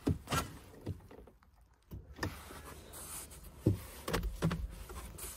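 Scattered handling knocks and clicks at the car, about seven short ones, with a brief quiet spell about a second in.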